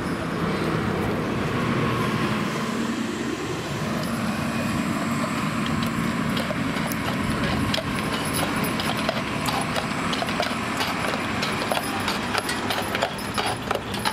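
A city bus drives past, its engine and tyre noise swelling over the first few seconds, then fading. A pair of draft horses pulling a carriage clip-clop on the asphalt road, their hoofbeats growing louder toward the end.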